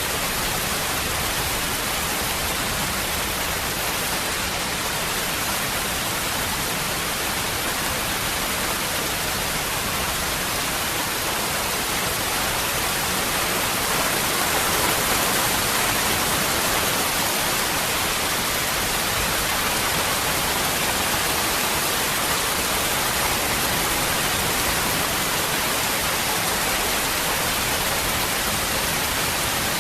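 Waterfall: water falling and splashing in a steady, dense rush, swelling slightly about halfway through.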